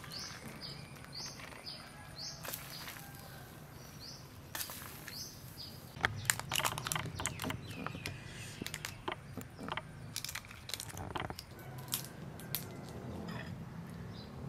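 A bird chirping in short high calls over the first few seconds. From about six seconds in, a run of clicks and crunches: a spoon against a glass bowl and a cooked shrimp's shell being broken apart by hand.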